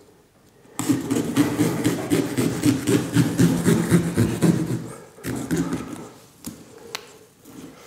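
A small knife sawing back and forth through a pumpkin's rind and flesh: a rasping run of quick strokes for about four seconds, then a few scattered light clicks and scrapes as the cutting slows.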